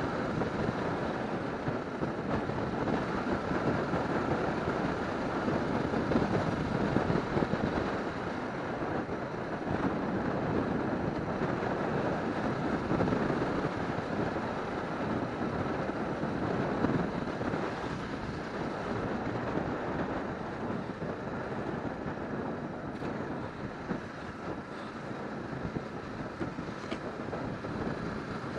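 Motorcycle riding along a road: the engine running under steady wind and road noise on the bike-mounted camera's microphone.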